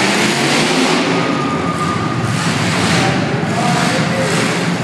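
Demolition derby cars' engines running and revving together in a steady, loud din.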